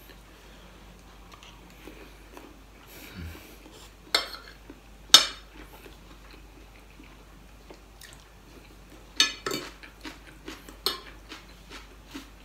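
Metal spoon and fork clinking and scraping against a dinner plate while scooping rice and adobo, in scattered sharp clinks. The loudest clink comes about five seconds in, and a quick run of them follows around nine to eleven seconds.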